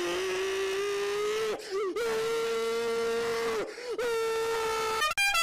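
Three long held wailing notes, the first lower and the next two higher and steady. Near the end a musical car horn starts a quick tune of short notes stepping up and down in pitch.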